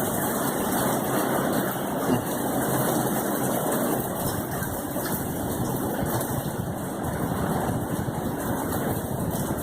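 Steady rain during a hurricane: a dense, even hiss that does not let up.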